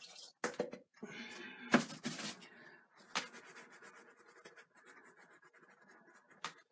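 Painting tools being handled: a few sharp clicks and knocks, the loudest a little under two seconds in, with a stretch of scraping in the first half and faint rustling after.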